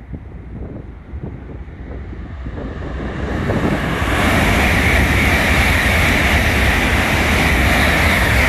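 700 Series Shinkansen passing through a station at high speed without stopping. A rushing noise swells over the first few seconds as it approaches, then becomes a loud, steady rush as the cars go by close at hand.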